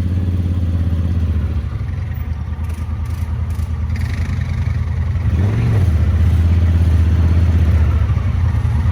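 ATV engine running, a steady low drone that grows a little louder about five and a half seconds in.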